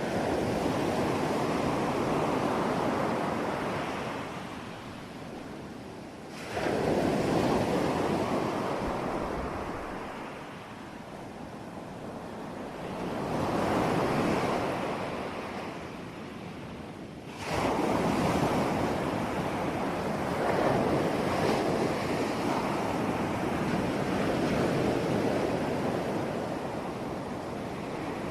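Sea waves breaking in repeated surges, each a rushing wash that swells and fades. A wave crashes in suddenly about six seconds in and another a little past seventeen seconds, with a gentler swell between them.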